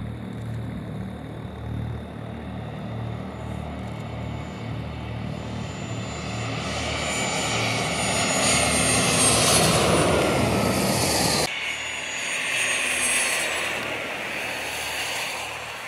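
RQ-4 Global Hawk's single turbofan jet engine whining as the drone comes in low to land, growing steadily louder with a high whine on top. The sound breaks off abruptly about two-thirds of the way in, then swells again as it passes close by and fades.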